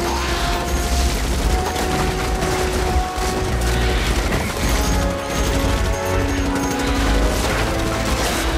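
Morita assault rifles firing on full automatic, a continuous rapid fusillade with a heavy low rumble, over an orchestral film score holding long notes.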